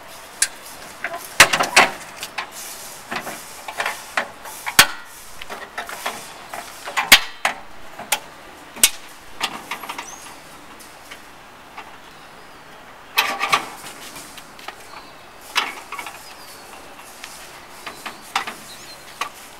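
Aluminium fold-out tailgate bench being unfolded and set up: a string of sharp metal clanks and clicks as its frame swings out and its leg is set in place, with a small cluster of knocks about two-thirds of the way through.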